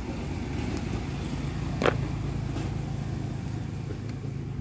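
A steady low engine hum, with one sharp click about two seconds in.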